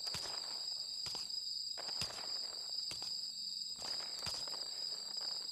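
Crickets chirping in a steady high drone, with footsteps landing about once a second as someone walks up.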